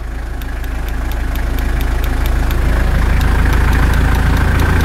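Mitsubishi Delica L400's 4M40 turbo-diesel four-cylinder engine running a little above idle, its revs and loudness creeping up as the cruise-control actuator pulls the throttle tighter with each tap of the set button.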